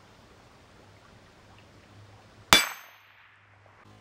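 A .22 LR bullet striking a steel plate target close by: one sharp clang about two and a half seconds in, with a high ring that dies away within half a second.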